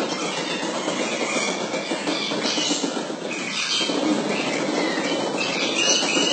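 Basketballs bouncing on a gym's wooden court floor, blurring into a continuous echoing clatter.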